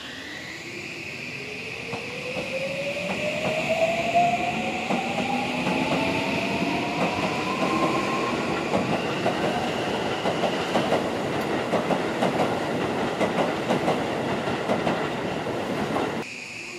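Toei Asakusa Line 5500-series electric train pulling out: its motor inverter whine rises steadily in pitch as it accelerates. Then comes a rapid clacking of wheels over rail joints as the cars speed past, which cuts off suddenly near the end as the last car clears.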